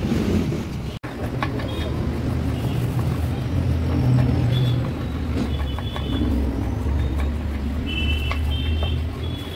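Street ambience: a steady low rumble of road traffic, with voices in the background and a few short high-pitched tones in the second half.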